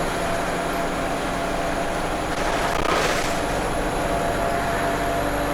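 ADL Enviro 200 bus engine running under way, heard from inside, with a steady high turbo whine over the engine and road noise. A brief hiss swells and fades about three seconds in.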